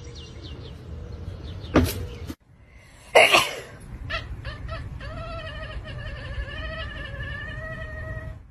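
A cat's long, wavering yowl, held for about four seconds in the second half. It is preceded by a couple of sharp knocks.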